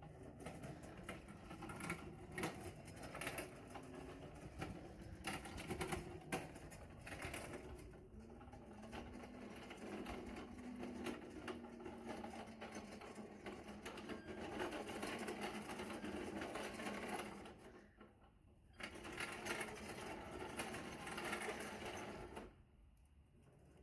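Small electric motor of a remote-controlled lawnmower running with a rapid buzzing chatter. It drops out briefly about eighteen seconds in, starts again, and stops near the end.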